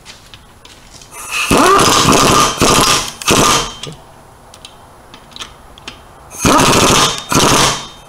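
Air impact wrench with a torque-limiting extension bar hammering wheel lug nuts tight, the bar holding the torque to just under 80 foot-pounds. It runs in two stretches: a longer one with short breaks starting about a second in, then a shorter one near the end.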